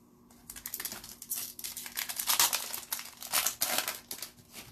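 Crinkling of a trading-card pack wrapper being handled, with dense crackling that lasts about four seconds and is loudest around the middle.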